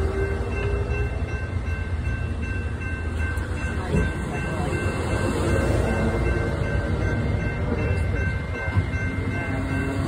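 Amtrak Superliner passenger cars and a baggage car rolling past the station platform: a steady low rumble of wheels on rail, with a couple of short knocks about four seconds in and near the end.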